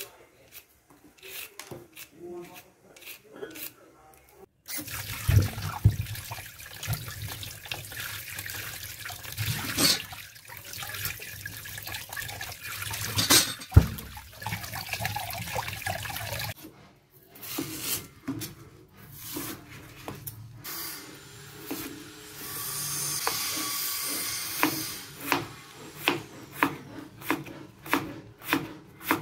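A hand peeler scraping the skin off a purple yam in short strokes, then hands splashing and rubbing the peeled yam in a steel bowl of water, later a steady hiss of water. Near the end a knife chops the yam on a wooden cutting board in a steady run of knocks.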